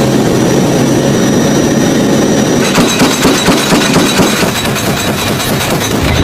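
Steady drone of an AC-130 gunship's turboprop engines heard inside the cabin, joined about two and a half seconds in by a dense, irregular run of metallic clattering knocks from ammunition handling and firing.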